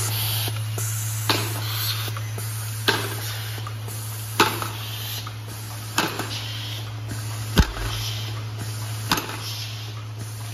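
Vibratory bowl feeder humming steadily at a low pitch. A sharp click with a short hiss of air comes about every one and a half seconds as the blow-feed shoots screws through the air tube.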